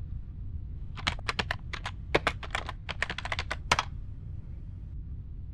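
Typing on a computer keyboard: a quick run of key clicks starting about a second in and stopping near four seconds, over a steady low hum.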